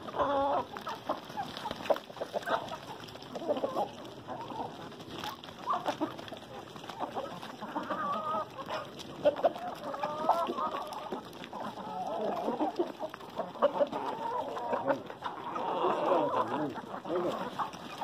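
A large flock of hens clucking and calling over one another without a break, excited while they crowd in to be fed corn.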